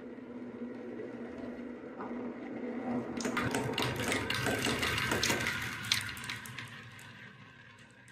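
Marbles rolling round wooden spiral marble-run tracks with a steady rumble, then dropping one after another into plastic catch trays with a flurry of clicks and clacks from about three seconds in, dying away near the end as the last ones settle.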